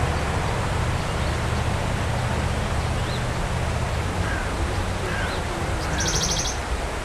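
Steady rushing of flowing river water, with a low rumble underneath. A few faint bird chirps come through, and a short burst of high rapid ticking sounds about six seconds in.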